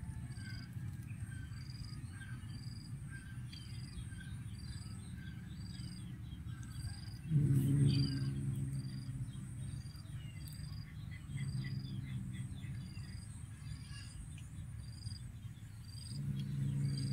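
Insects chirping steadily in outdoor vegetation: short high chirps repeating evenly about one and a half times a second, with a fainter lower repeating note beneath. A low pitched tone swells in briefly about seven seconds in and again near the end.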